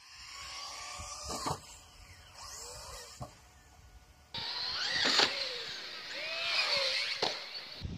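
Electric motor and drivetrain of a Traxxas Slash 4x4 RC truck whining as the throttle is worked, its pitch sweeping up and down. There are sharp knocks about every two seconds, and the sound gets louder about halfway through.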